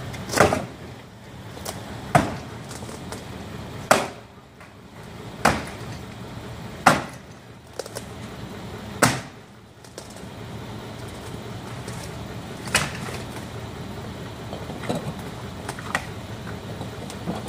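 Demolition knocks on a fire-damaged wood-framed house: sharp bangs about every one and a half to two seconds, then fewer and more widely spaced after about nine seconds.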